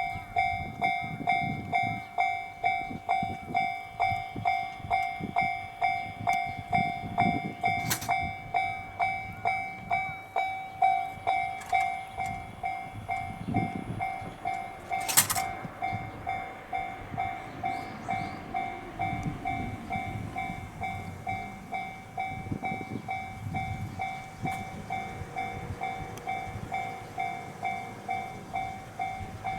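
Japanese railway level-crossing warning bell ringing, an electronic ding of steady pitch repeating about one and a half times a second. A low rumble swells and fades beneath it, and there is a sharp click about halfway through.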